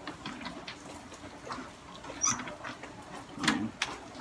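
A cloth rustling as gloved hands spread it under an inkjet printer's front and handle the printer's plastic, with scattered light clicks and scrapes. There are two louder knocks, about two seconds in and about three and a half seconds in, the second the loudest.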